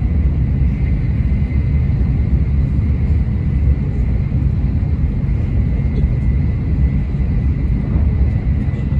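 Steady low rumble of an N700-series Shinkansen running, heard from inside the passenger car, with a faint thin whine held above it.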